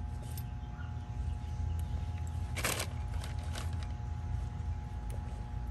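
Small clicks and handling noises of wires and alligator clips being worked on a condensing unit's capacitor, with one louder brief scrape about two and a half seconds in, over a steady low hum.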